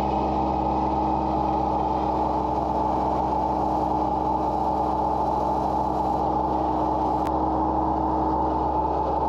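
Backhoe engine running at a steady speed while its hydraulics are not working as they should, a fault that the owner suspects is in the hydraulic oil.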